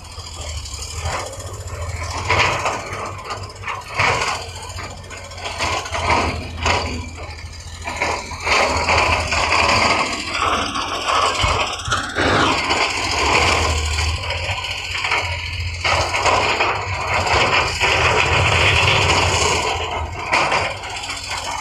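Heavy earthmoving machinery working: a steady low diesel engine drone under repeated knocks, clanks and scraping of material.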